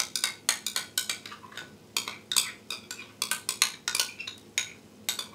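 A metal spoon clinking and scraping against a glass bowl as a thick mayonnaise-and-yogurt mixture is spooned out, in quick irregular taps that stop shortly before the end.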